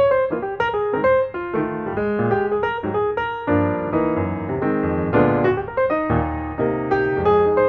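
Background piano music: a run of separate notes over a lower bass line.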